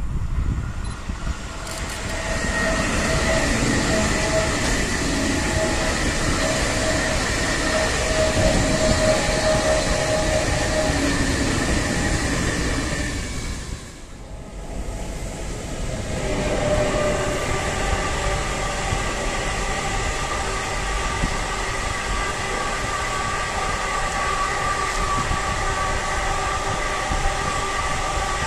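An ICE high-speed train passes at speed, a steady rolling rush with a held whine. After a short dip about halfway, a long container freight train rolls past, its wagons running steadily with several held tones.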